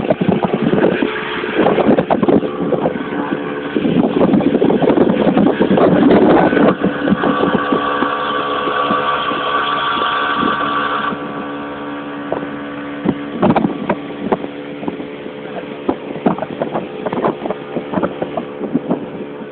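An engine runs steadily under load, heard from aboard the moving vehicle, with frequent knocks and rattles. About eleven seconds in, its higher tone drops away abruptly and the engine settles to a lower, quieter note.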